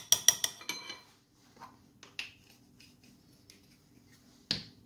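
A spoon tapping several times in quick succession against the rim of a ceramic bowl, knocking grated ginger paste off into a soy-sauce marinade. Two more single clinks follow, one about two seconds in and one near the end.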